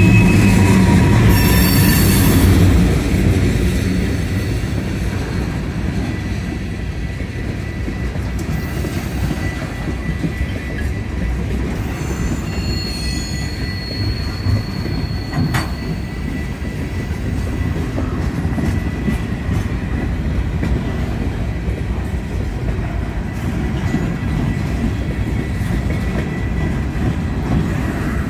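Railway train rolling past, its steel wheels squealing against the rails in thin, high tones over a steady rumble. Loudest in the first few seconds, with a second, higher squeal for a few seconds around the middle.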